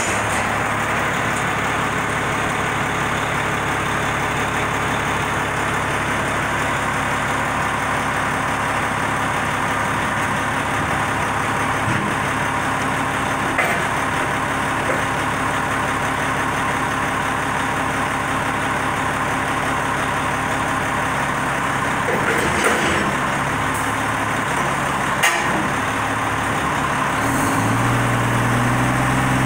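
Front-loader garbage truck's diesel engine idling steadily, with a few short knocks in the second half. Near the end the engine revs up, as it does to drive the hydraulic arms that begin lifting the dumpster.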